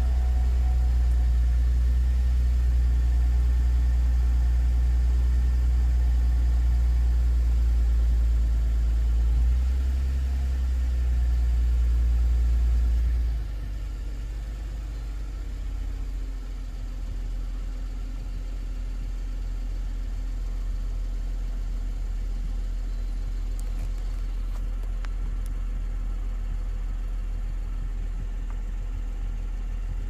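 2011 Lexus IS250C's 2.5-litre V6 idling with the air conditioning running, heard from inside the cabin as a steady low drone. About 13 seconds in, the sound drops noticeably quieter and then holds steady.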